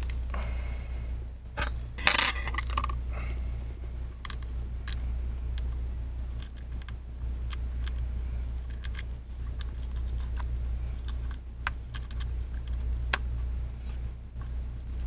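Small clicks, taps and scrapes of gloved fingers handling an opened iPad as its flex cable connectors are lined up and pressed onto the logic board, with a louder clatter about two seconds in. A steady low hum sits underneath.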